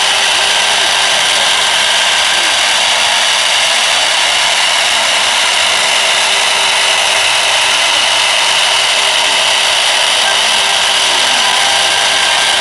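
CNC router spindle running with its router bit cutting spiral grooves into a wooden baluster turned on a rotary axis: a steady spindle whine with the hiss of wood being cut.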